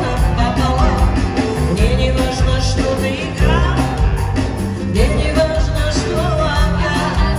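Live band playing a pop-rock song, a woman singing lead over bass guitar and drums.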